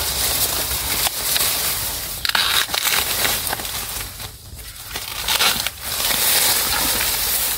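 Bamboo leaves and dry litter rustling and crunching as someone pushes into a bamboo clump, with a few sharp cracks, and a brief quieter moment about halfway through.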